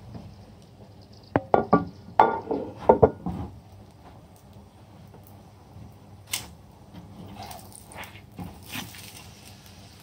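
Kitchenware being handled beside a stove: a tawa and a ceramic plate clattering and clinking. A quick cluster of knocks and clinks comes between about one and a half and three and a half seconds in, and a few lighter knocks follow later.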